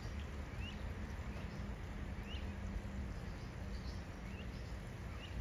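A bird chirping outdoors: short rising notes repeated roughly once a second, over a steady low background hum.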